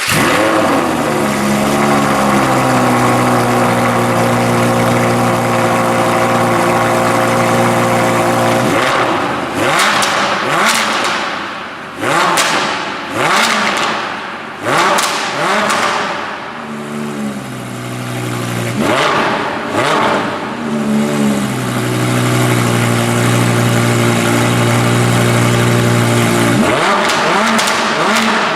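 Audi R8 V10 Plus's 5.2-litre V10 through an aftermarket Larini exhaust, just started. It settles from the start-up flare to a steady fast idle, then is revved hard repeatedly in quick succession, the pitch jumping up and falling back each time, with crackles on the overrun between revs. It drops back to a steady idle and is revved once more near the end.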